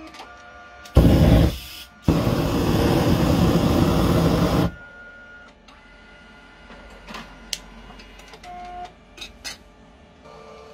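Canon colour laser multifunction copier running a copy: a short loud burst of mechanism noise about a second in, then a loud steady run for about two and a half seconds that stops suddenly. Quieter clicks and a few faint tones follow.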